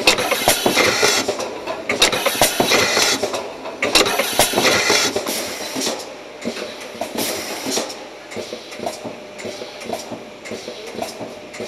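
Automatic aerosol can filling machine running: bursts of compressed-air hissing about every two seconds from its pneumatic filling heads cycling over the cans, over a constant metallic clatter. About halfway in the hissing stops, leaving a lighter rattle and clinking of aerosol cans riding the conveyor chain.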